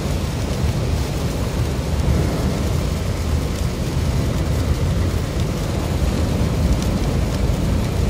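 Steady noise inside a moving car on a wet expressway in heavy rain: a deep road and engine rumble with the hiss of tyres on the wet road and rain on the car.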